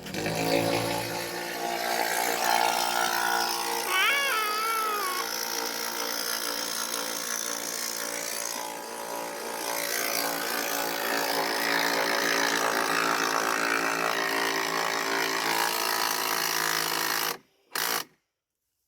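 Power drill running steadily for about seventeen seconds at a fairly even speed, easing briefly about halfway, then stopping suddenly, followed by one short burst.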